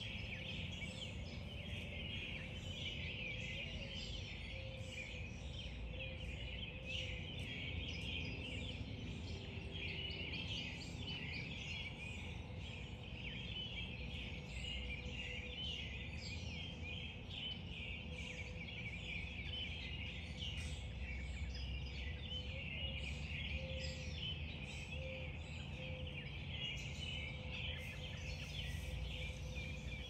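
Dawn chorus of many songbirds singing at once: a dense, unbroken chatter of chirps and trills, with a steady low hum underneath.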